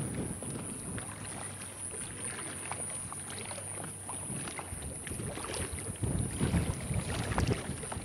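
Outdoor ambience: gusts of wind buffeting the microphone, strongest near the end, over a steady high-pitched hiss and scattered light ticks.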